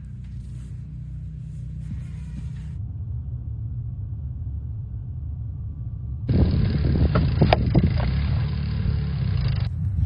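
Low, steady rumble of a car driving on a snow-covered road, getting louder about six seconds in, with abrupt changes in the sound where the clips are cut.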